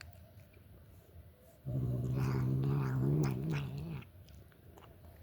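Domestic cat making a strange, low, steady droning noise while eating, with small chewing clicks over it. The noise starts partway in, lasts about two seconds and stops.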